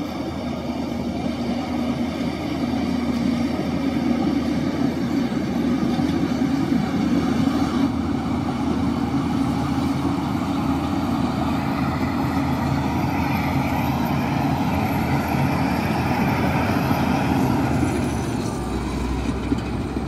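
Heavy diesel engine of earthmoving machinery running steadily under load, growing louder over the first few seconds, with a faint high whine over it in the second half.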